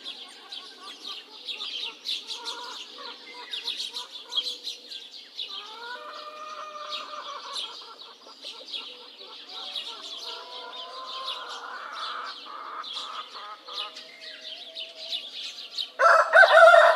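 Small birds chirping continuously, with hens clucking and calling. About a second before the end, a rooster starts a loud crow.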